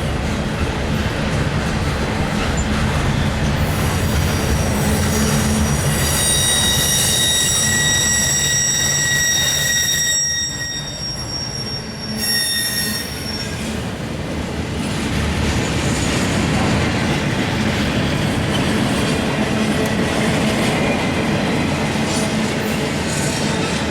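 Intermodal freight cars rolling slowly past on steel wheels, with a steady rumble and rail noise. A high-pitched wheel squeal comes in about six seconds in and holds for several seconds before fading.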